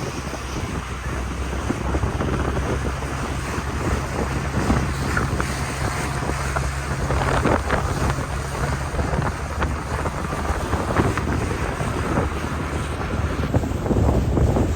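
Motorboat under way on a lake: a steady low engine hum with water rushing and splashing against the hull, and wind buffeting the microphone.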